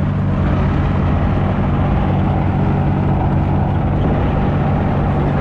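New Holland mini excavator's engine running steadily and loudly, with no change in pitch.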